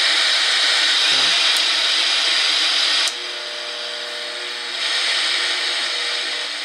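Static hiss from a Fisher-Price PXL 2000 TV's speaker, tuned to no station: no channel is coming in. About three seconds in the hiss drops suddenly to a quieter level with a faint steady hum, then grows louder again.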